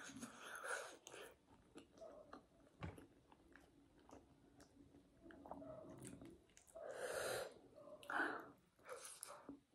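Close-up mouth sounds of a person eating by hand: chewing and smacking, broken by several sharp, airy breaths, near the start and again toward the end, typical of someone eating very spicy food.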